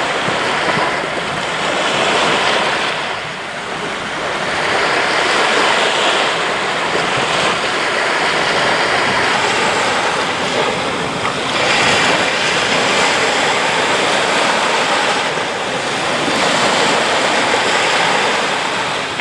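Small waves breaking and washing up the shore, the surf rising and falling every few seconds.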